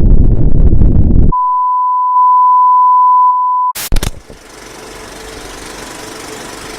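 A loud low rumbling noise cuts off about a second in, giving way to one steady electronic beep at a single pitch, held for about two and a half seconds. It ends in a few sharp clicks, and a faint steady hiss follows.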